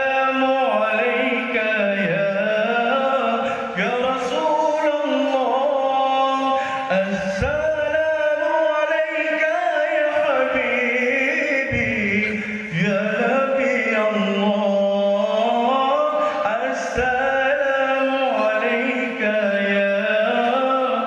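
A solo male voice singing an Arabic qasidah in Middle Eastern style: long, melismatic lines that glide and ornament up and down in pitch, held almost without pause.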